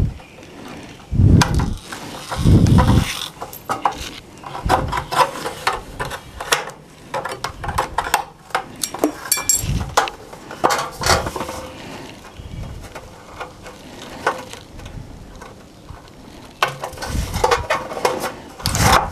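Aviation tin snips cutting a tab into the end of thin aluminum trim: a run of short, irregular snips and clicks from the blades, with a couple of dull thumps in the first few seconds.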